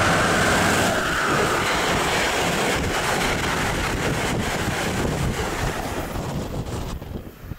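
Amtrak train with stainless-steel passenger cars passing the platform at speed: a loud, steady rushing roar of wheels on rail and moving air, with wind buffeting the microphone. The roar drops away sharply about seven seconds in.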